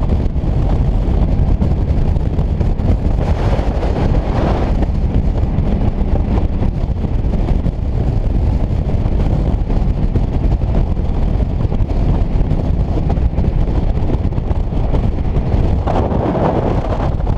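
Steady wind noise on a motorcycle-mounted camera over the low rumble of the motorcycle's engine and road noise while riding. The wind swells briefly about three to four seconds in and again near the end.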